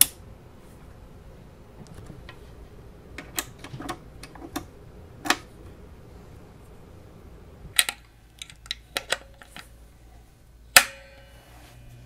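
Handling noise at a Positive Grid Spark 40 guitar amp: a scattered series of sharp clicks and knocks as cables and jack plugs are handled and pushed in and its knobs are touched. The sharpest click comes right at the start, another near the end.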